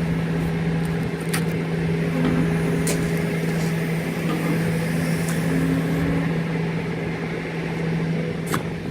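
Engine running steadily at a constant speed, a loud even hum, with a few short sharp clicks or knocks over it.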